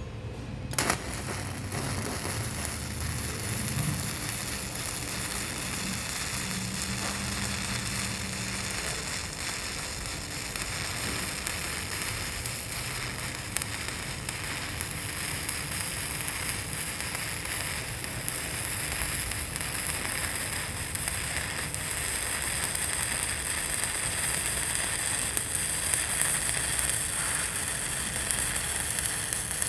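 Shielded metal arc (stick) welding: a 309 stainless steel electrode's arc, struck about a second in, crackling and hissing steadily as it is dragged along a cap bead on carbon steel plate at 70 amps.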